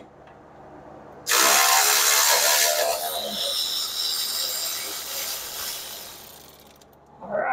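Cordless ratchet spinning a strut top-mount nut off its stud. The ratchet's motor starts suddenly about a second in, loud at first, then settles into a thinner, higher whir that fades out gradually as the nut runs loose.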